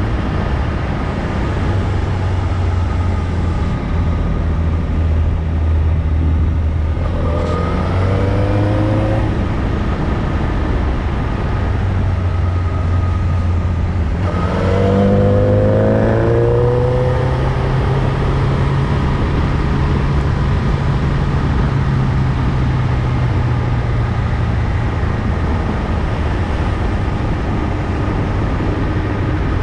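Motorcycle engine running under way, with wind rushing over the microphone; the engine revs up twice, about a third of the way in and again near the middle, as it pulls out of bends, then settles to a steady cruise.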